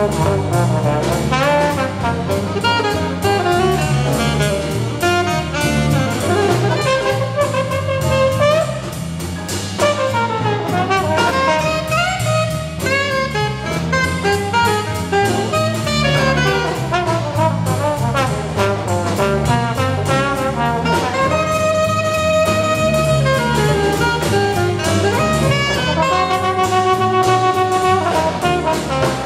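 Live jazz ensemble playing, an alto saxophone and a trombone carrying the lead lines over a drum kit and rhythm section. In the second half the horns hold several long notes.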